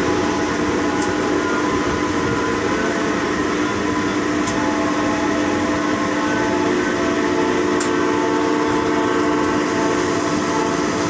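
Tower crane machinery heard from inside the operator's cab as the crane slews: a steady mechanical hum with a few held tones and occasional faint clicks.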